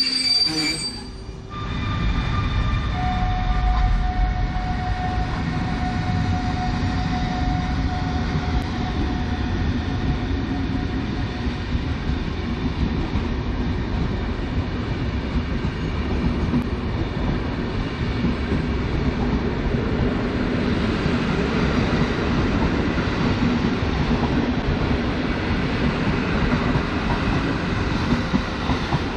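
A train running through the station: a steady rumble of wheels on the rails, with a thin high whine that holds for several seconds near the start.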